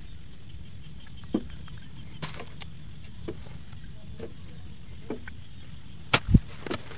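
Hoe blade chopping into damp soil: a few scattered dull knocks and scrapes, the loudest pair of thuds about six seconds in, over a steady low rumble.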